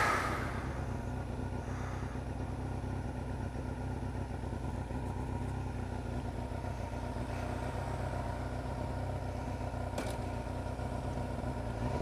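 A motorcycle's engine idling steadily, heard from a camera mounted on the bike, with one faint click about ten seconds in.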